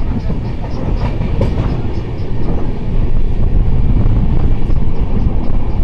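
Train running along the track: a steady, loud rumble of wheels and carriage, heard from inside the coach. It grows louder about halfway through.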